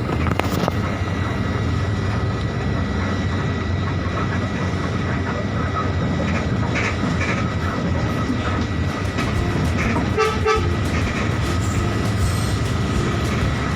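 Mercedes-Benz OH 1526 bus driving, its diesel engine and drivetrain running steadily under the rattle and road noise of the moving bus, heard from on board. A short tone sounds about ten seconds in.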